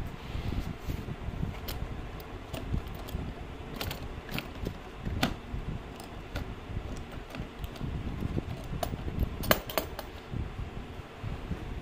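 Hard plastic tool case being handled and its metal latch clasps unfastened: scattered plastic knocks and sharp metallic clicks, the sharpest two close together near the end.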